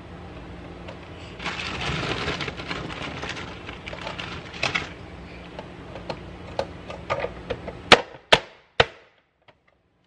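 Manual press-style vegetable chopper dicing partly frozen baby carrots: a stretch of crunching as the lid forces the carrots through the blade grid, then scattered clicks and three loud, sharp snaps from the chopper's plastic parts near the end.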